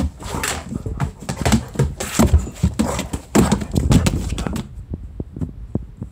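German Shepherd and kitten play-fighting on a wooden floor: a busy run of scuffling and thumps for about four and a half seconds, then a few sharp clicks, like claws on the floor, as the dog stands over the kitten.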